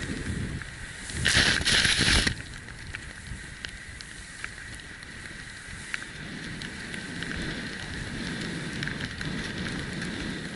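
Snowboard sliding and turning through deep powder: a louder rush of spraying snow about a second in, then a steady hiss with small crackles as the board glides on, with some wind on the microphone.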